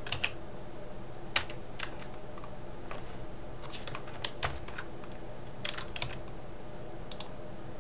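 Computer keyboard keys and mouse buttons clicking as shortcuts are pressed: scattered single clicks and short runs of two or three, over a faint steady hum.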